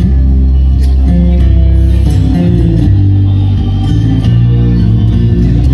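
Music with deep, sustained bass notes and plucked guitar, playing through a car audio system.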